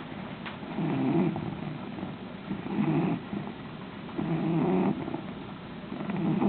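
English Bulldog snoring in her sleep, a low, rough snore with each breath, four of them in an even rhythm.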